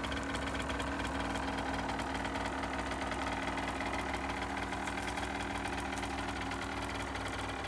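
A 2012 Aprilia SX 50's 50 cc two-stroke single-cylinder engine idling steadily.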